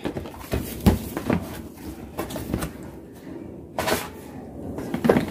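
A folded cardboard box being opened by hand: flaps pulled back and handled, with rustling and a series of light knocks, one sharper one near the end.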